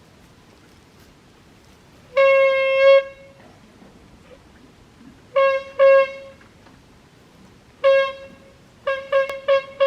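A horn honked repeatedly on one steady note: a long honk, two short ones, another single honk, then a quick run of short toots near the end.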